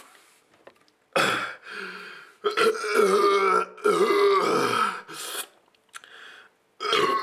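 A man belching several times in a row after downing a can of carbonated beer. The belches are long and drawn out, begin about a second in, and one more comes near the end.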